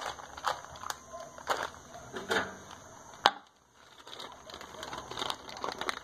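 A flour bag being handled and opened, its wrapping crinkling and rustling with scattered sharp clicks. A louder click a little past halfway is followed by a brief hush before the rustling resumes.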